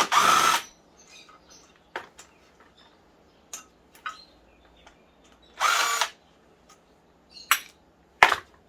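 Power drill-driver run in two short whirring bursts, each about half a second long, one at the start and one about six seconds in. Two sharp clicks follow near the end.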